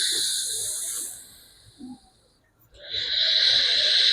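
Slow, audible breathing through one nostril at a time in alternate-nostril breathing (anulom vilom pranayama): a long breath hisses and fades out about a second and a half in, and after a short pause another breath begins about three seconds in.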